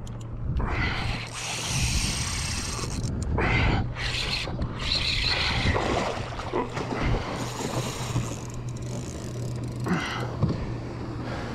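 Water splashing and churning as a hooked barracuda thrashes at the surface beside a kayak, in uneven rushes, with a steady low hum underneath.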